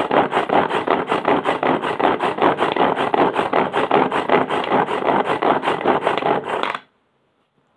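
Hand-pull plastic chopper worked rapidly, its blades churning chopped aloe vera leaf pieces in water with a fast, even rattling and scraping rhythm. It stops abruptly near the end.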